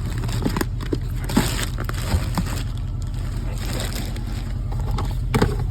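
Subaru Brumby's flat-four engine idling steadily while still cold, just after an oil and filter change, with a few light clicks and taps over it.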